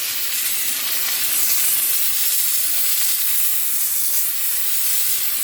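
Handheld steam cleaner jetting steam in a steady hiss, used to clean mold off an air conditioner.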